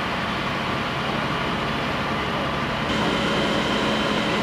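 Steady drone of fire-service vehicle engines and pumps running. About three seconds in, the sound shifts and a faint, steady high whine joins it.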